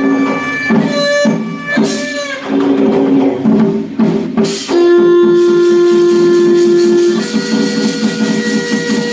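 Live traditional Vietnamese funeral ritual music: long held melody notes over plucked strings and light percussion. Near the end the held melody gives way to quick, even plucked notes.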